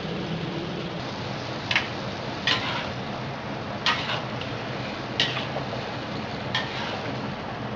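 Mutton, tomatoes and goat stock bubbling and sizzling in a karahi, a steady hiss, with a metal spoon clicking against the pan five times as it stirs.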